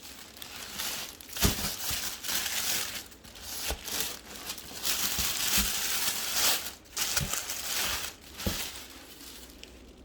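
Packaging crinkling and rustling in bursts as a new handbag is unwrapped, with a few soft knocks among it.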